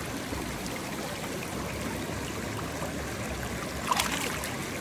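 Small mountain trout stream flowing steadily over rocks. About four seconds in comes a short, loud splash as a trout is let go into the water by hand.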